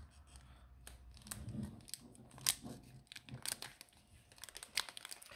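Foil Pokémon booster-pack wrapper crinkling and crackling in irregular short clicks as it is picked and peeled open by hand at a stubborn seam.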